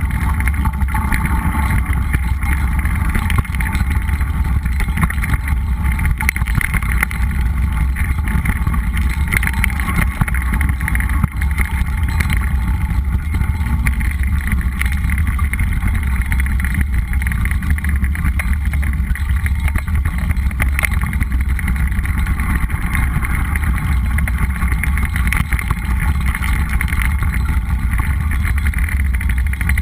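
Mountain bike riding over a dry dirt and gravel trail: tyres crunching on the ground and frequent small clicks and rattles from the bike. A steady rumble of wind buffets the bike-mounted camera's microphone.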